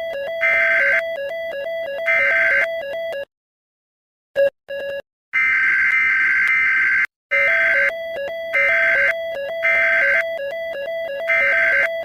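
Synthesized EAS-style alarm tones. A harsh high tone in half-second bursts alternates with a steadier lower two-note tone. About three seconds in, it cuts out for two seconds except for two short blips, then holds the high tone for nearly two seconds before the alternating pattern resumes.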